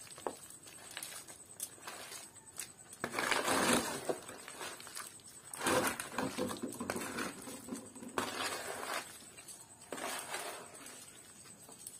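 Metal spoon scraping and stirring sticky pickle across a woven bamboo tray, in irregular rasping strokes of about a second, with a few light clicks between them.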